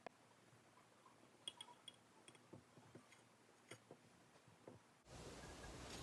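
Near silence with a scattering of faint small clicks, about ten, most of them in the middle; the background hiss rises a little near the end.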